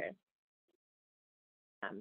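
Near silence in a pause of spoken narration: the end of one word at the start, a tiny faint blip, and the next word starting near the end.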